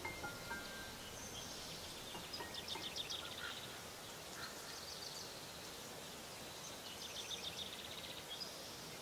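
Small woodland stream running over rocks in a steady wash, with birds giving short rapid trills twice, about a second and a half in and again near the end.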